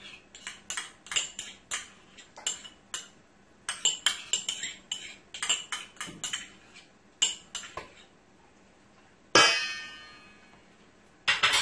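Metal teaspoon repeatedly tapping and scraping against a small cup to knock out Dijon mustard, a quick irregular run of light clicks. About nine seconds in comes one louder metallic ring that fades out over about a second, followed by a few more clicks near the end.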